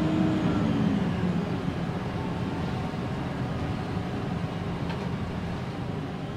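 Cabin sound of a 2010 Gillig BRT transit bus with a Cummins ISL9 inline-six diesel and Voith automatic transmission: a drivetrain whine drops in pitch and fades about a second in, leaving a steady diesel drone that gets gradually quieter as the bus eases off.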